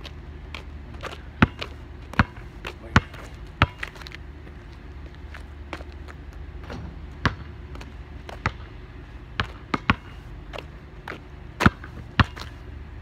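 Basketball bouncing on asphalt as it is dribbled: sharp bounces about every 0.7 s for the first few seconds, a pause of about three seconds, then scattered bounces.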